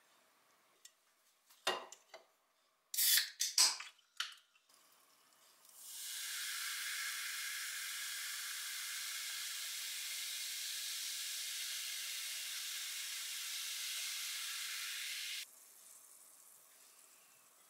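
A can of lime sparkling water is handled and cracked open with a few sharp clicks and short hisses, then poured into a glass of mulled wine: a steady fizzing pour lasting about ten seconds that stops abruptly, leaving a faint fizz.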